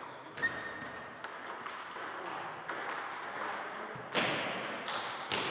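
Celluloid-type table tennis balls clicking off bats and tables, a handful of sharp, irregularly spaced clicks, the loudest about four seconds in.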